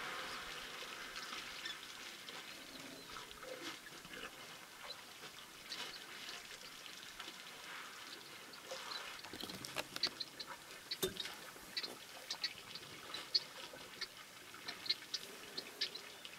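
African elephants drinking at a waterhole: faint water splashing and dripping as they draw water with their trunks, with small sharp splashes and drips coming thick and fast from about halfway through.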